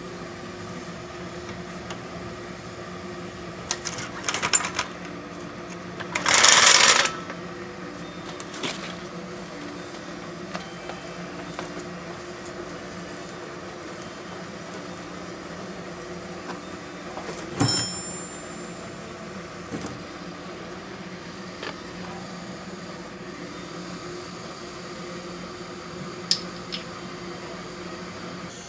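Metal clinks and knocks from hand tools and parts during an ATV oil change, over a steady low hum. About six seconds in, a loud rushing hiss lasts about a second. A sharp ringing clink comes near the middle.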